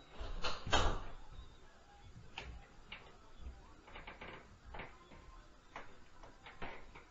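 A louder clattering knock with a dull thud between half a second and a second in, followed by scattered single knocks and clicks at irregular intervals.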